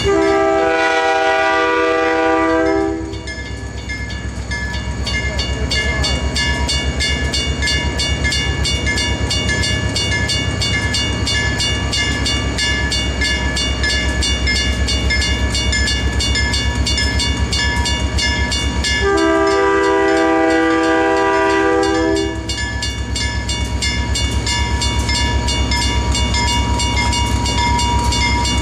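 EMD diesel locomotive approaching, sounding its multi-chime air horn twice: a blast of about three seconds at the start and another of about three seconds two-thirds of the way through, each with a short break. Between the horn blasts the diesel engine runs with a steady low drone.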